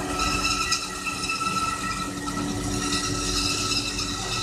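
Horizontal metal-cutting bandsaw running: a steady mechanical hum with several high steady tones over a continuous hiss.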